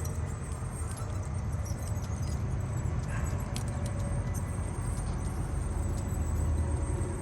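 Train running by with a steady low rumble and a few light metallic clinks about halfway through.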